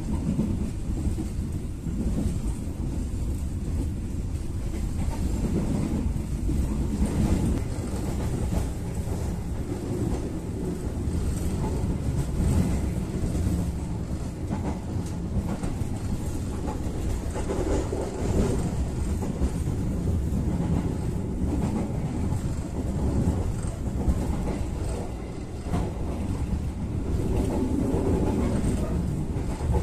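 Steady rumble of a passenger coach of the Sribilah executive-class train running on the rails, heard from inside the carriage, with faint clicking of the wheels over the track.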